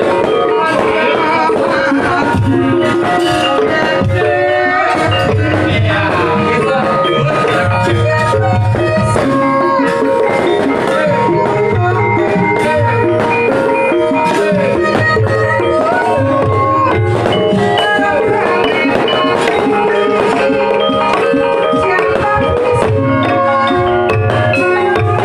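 Javanese gamelan ensemble playing a gendhing in north-coast (Pantura) style: bronze metallophones ringing out the melody over hand-played kendang drum strokes.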